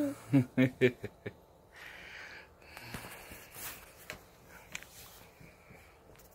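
Baby giggling: a quick run of about five short laughs in the first second or so, then quieter breathy sounds.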